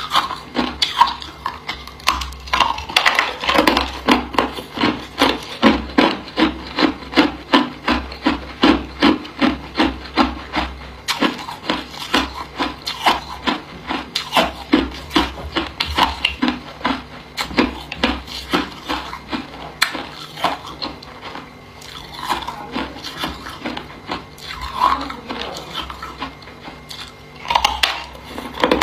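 A person biting and chewing hard ice, a steady run of sharp crunches about two to three a second, quieter for a few seconds past the middle.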